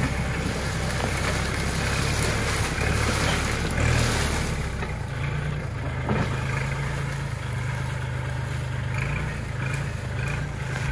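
Kubota L4018 tractor's diesel engine running steadily, working on a firebreak. A rushing noise lies over the engine and is heavier in the first four seconds or so.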